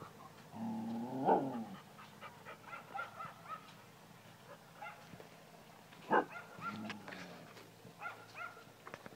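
A dog barking and yelping: a drawn-out yelp about a second in and a sharp bark about six seconds in, with many short high-pitched calls scattered between.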